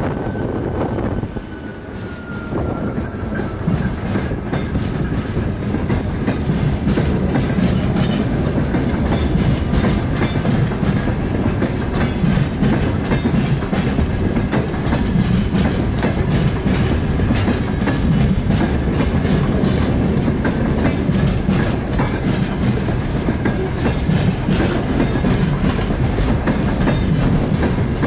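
TEM2U diesel shunting locomotive and its train rolling by, the engine rumbling steadily while the wheels click over the rail joints. It gets louder about four seconds in and stays loud.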